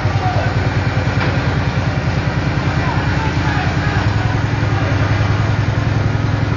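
An engine-driven fire pump running steadily, a low even drone, as it feeds the hose spraying water onto the fire. Faint voices over it.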